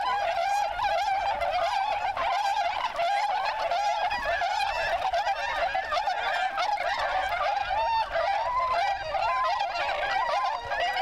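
A flock of dozens of Bewick's swans calling together: a dense, continuous chorus of many overlapping, wavering calls.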